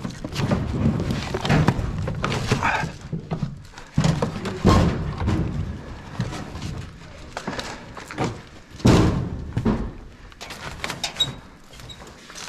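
Irregular thumps and knocks of players climbing up into the rafters and moving about, with the loudest thuds about 4, 5 and 9 seconds in.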